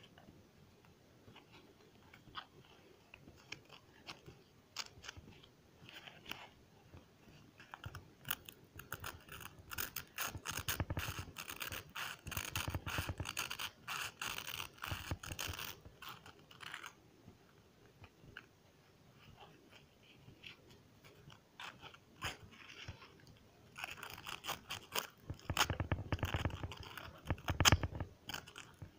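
Crinkling and scraping of plastic sheeting handled close to the microphone: dense runs of quick crackles in two long bursts, the first about a third of the way in and the second near the end, with scattered clicks between.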